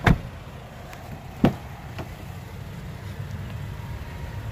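Front passenger door of a 2020 Toyota Tacoma being unlatched and swung open: two sharp knocks about a second and a half apart, then a steady low hum.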